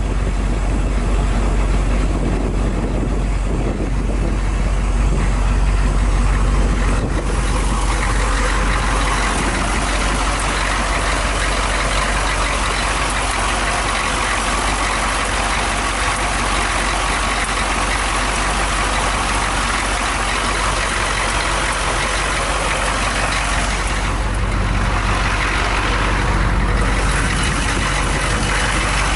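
1991 AM General M998 Humvee's 6.2-litre V8 diesel idling steadily with a strong low hum. The sound turns brighter and hissier from about seven seconds in.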